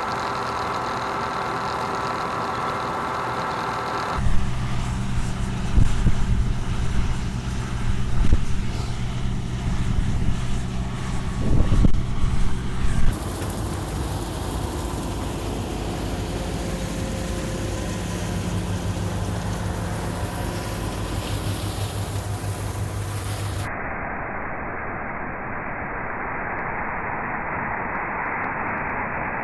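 The six-cylinder diesel engine and machinery of a 1976 John Deere 6600 combine run steadily while harvesting, heard in several cuts. A louder stretch in the middle carries irregular low thumps. For the last several seconds the sound gives way to a steady, muffled hiss with no engine note.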